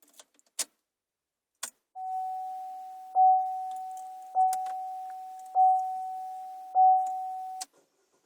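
Two sharp clicks, then a steady high tone that swells sharply about every second and stops abruptly with a click near the end.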